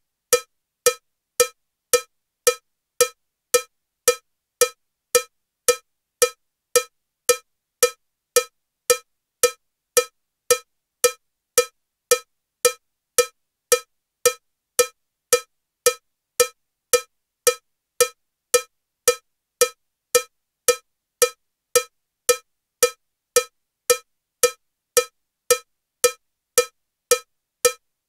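Metronome ticking at 112 beats per minute with a cowbell sound: short, evenly spaced strikes, a little under two a second, all alike, with no accented beat.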